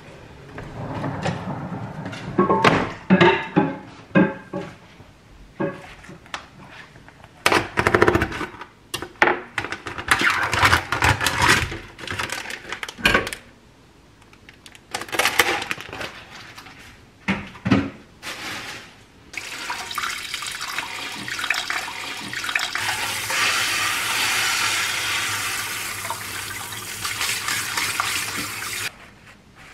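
Kitchen tap running steadily into a stainless-steel sink as raw chicken thighs are rinsed in a plastic colander; the water cuts off suddenly near the end. Before that come knocks and rustling of a plastic meat tray being handled at the sink.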